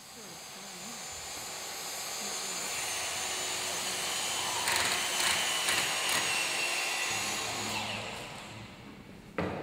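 Power chop saw running and cutting a small piece of metal angle. Its steady noise builds over the first few seconds, turns harsher and scraping about five to six seconds in as the blade bites, then dies down near the end.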